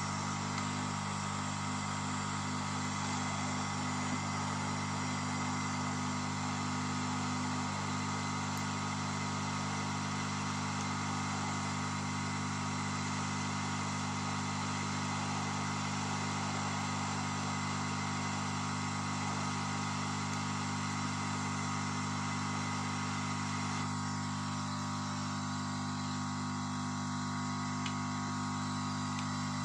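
Hot-air rework station blowing: a steady whir with a hum from the handpiece's fan, used to desolder a firmware chip from a TV mainboard.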